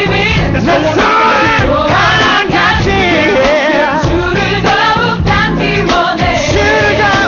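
Gospel song: voices singing ornamented, wavering lines with melodic runs over a steady bass and band accompaniment.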